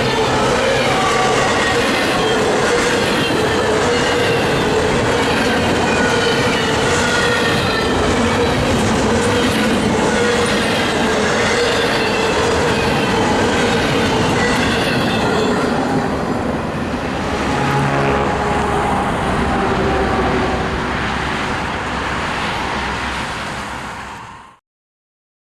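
Cars of a passing intermodal freight train rolling by, with wheels squealing in several wavering high tones over the rumble and clack of the wheels on the rails. The higher squeal fades about two-thirds of the way through, and the sound cuts off suddenly near the end.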